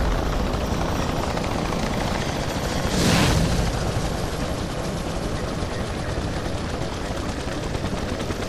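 Drone-rotor whir sound effect, a steady buzzing rush, with a louder whoosh about three seconds in.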